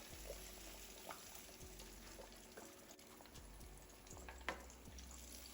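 Battered fish frying in hot oil: a faint, steady sizzle with a few light clicks and one sharper tap about four and a half seconds in.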